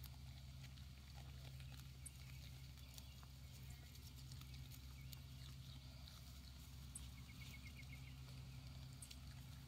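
Faint sounds of goat kids grazing, small clicks and tearing as they crop and chew the grass, over a steady low hum. A short run of quick ticks comes about seven seconds in.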